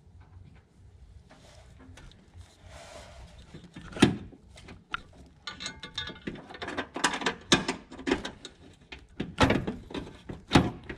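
Hands working the A/C hose fittings at the accumulator: quiet at first, a sharp click about four seconds in, then a run of irregular clicks and light knocks of metal parts being handled.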